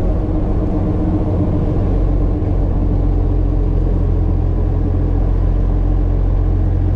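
Cummins R2.8 four-cylinder turbo-diesel in a Jeep Wrangler TJ running steadily as the Jeep is driven along, a low, even drone.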